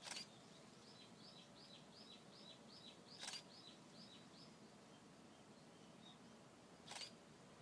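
A small bird faintly singing a quick run of a dozen or so short, high notes, each dropping in pitch, about three a second, which stops about halfway through. Three brief bumps, near the start, about three seconds in and near the end, stand out as the loudest sounds over a quiet outdoor hush.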